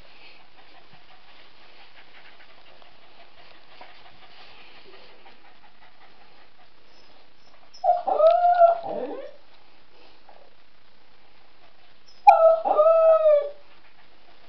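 West Highland White Terrier whining twice, about eight and twelve seconds in, each cry a second or so long and dropping in pitch at the end. It is the whining of a male dog worked up after meeting a female in heat.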